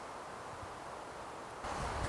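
Steady wind noise in the forest, an even hiss that turns louder and fuller about one and a half seconds in.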